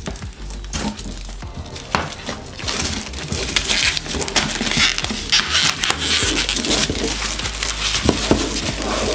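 Plastic shrink-wrap crinkling as it is slit with a folding knife and peeled off a cardboard box. The crackling gets busier about three seconds in.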